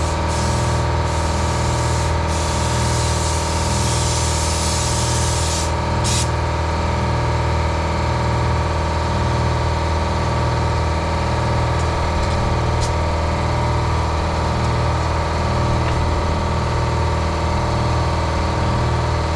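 Pressure washer running with a steady, pulsing drone while the wand sprays with a loud hiss; the spray hiss breaks briefly a couple of times and stops about six seconds in, leaving the machine running.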